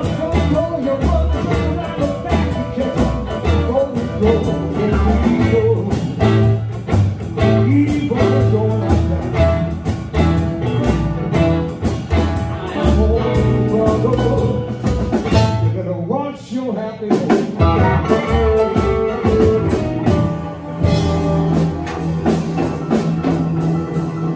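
A live blues band playing: upright bass, electric guitar, grand piano and drums, with a brief drop-out of the bass and drums about two-thirds of the way through before the full band comes back in.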